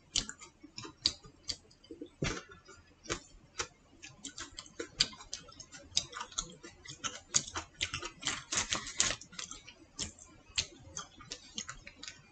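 Close-up eating sounds as seedless grapes are chewed: irregular wet clicks and smacks from the mouth, coming thickest from about six to nine seconds in.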